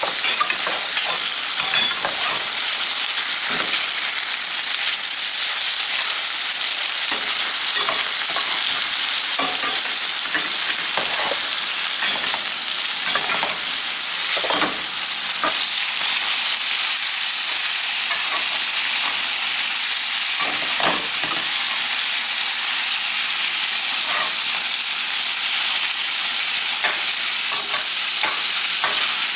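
Bacon and pan sausage sizzling steadily in a stainless steel skillet. A metal spoon scrapes and clinks against the pan now and then as the meat is broken up and turned, most often in the first half.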